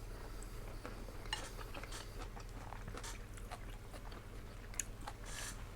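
People chewing and eating at close range: scattered short smacks and clicks of mouths and food, with two sharper clicks, about a second and a half in and near the end, over a steady low hum.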